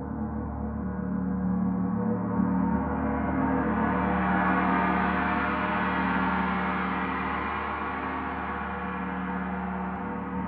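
Paiste Saturn planetary gong, tuned to D (147.85 Hz), ringing in a long continuous wash of overtones. It grows brighter and louder through the first half, then slowly eases off.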